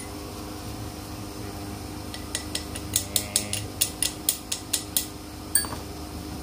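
Metal tools and blower parts clinking during the strip-down of an air blower: a quick run of sharp metallic clicks, about a dozen, starting a couple of seconds in and stopping near the end, over a steady low hum.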